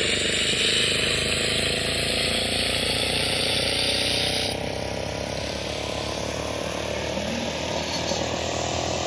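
A 4-inch angle grinder running and cutting a score line into the road surface: a steady, loud grinding whine. About halfway through, its highest, brightest part drops away and it gets a little quieter.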